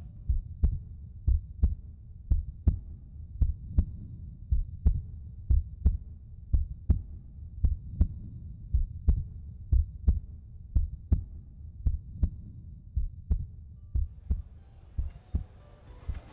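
Heartbeat sound effect: deep low thumps, often in lub-dub pairs, roughly one beat a second, over otherwise muted sound. Background noise fades back in near the end.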